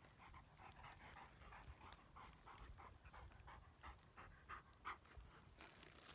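A dog panting quickly and faintly, about three short breaths a second.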